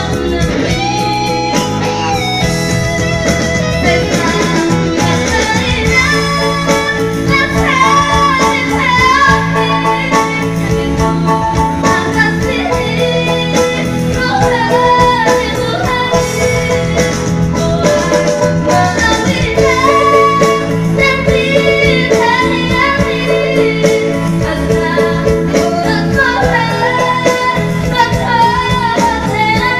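A female singer singing a song through a microphone over instrumental accompaniment, her voice sliding and holding notes throughout.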